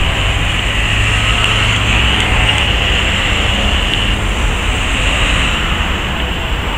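Articulated Irisbus Cristalis electric trolleybus driving off, a steady vehicle noise with a high hissing band over a heavy low rumble, easing slightly near the end as it moves away.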